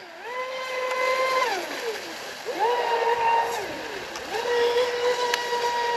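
RC speedboat's electric motor whining in three full-throttle bursts: each rises quickly, holds a steady pitch, then drops away, over a hiss of water.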